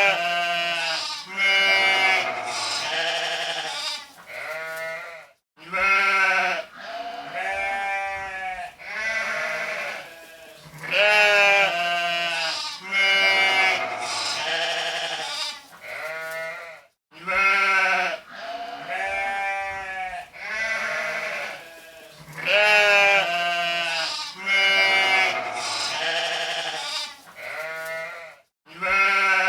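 Sheep bleating, one call after another with short gaps between them. The same run of bleats comes round again about every twelve seconds.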